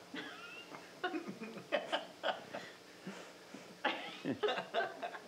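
Scattered light laughter and chuckling in short, irregular bursts.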